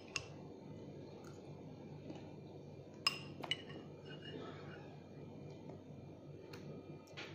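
Steel spoons clinking against glass bowls of poha as two people eat quickly: a few sharp, ringing clinks, the loudest about three seconds in, over a faint steady hum.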